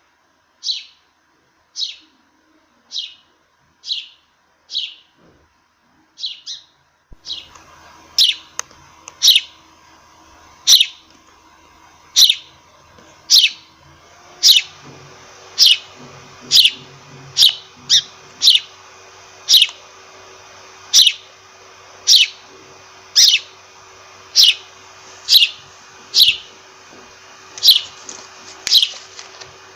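Sparrow chirping: a long run of short single chirps, each sliding down in pitch, about one or two a second. About seven seconds in, a faint steady hiss and low hum come in behind the chirps.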